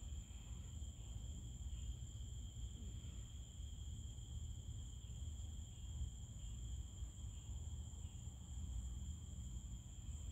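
A steady chorus of night-singing insects, heard as a continuous high-pitched trill with no breaks, over a faint low rumble.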